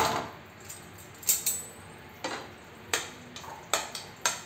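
A spoon clinking against a plate and a stainless steel bowl as chopped tomatoes are scraped off the plate into the bowl: about six sharp clinks, roughly one a second.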